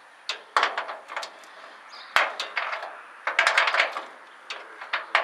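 Sharp metallic taps and clanks in irregular groups, with a quick flurry of them a little past the middle: a flat-blade screwdriver worked against a rusted bolt holding wheel-opening trim on an old truck.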